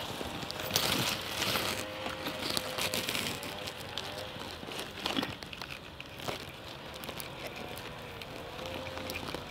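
Rustling and crackling of large squash leaves and stems being pushed through and handled, with scattered small snaps and clicks.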